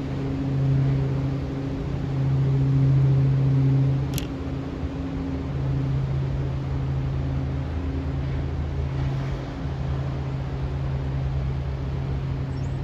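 A steady low mechanical hum with a sharp click about four seconds in.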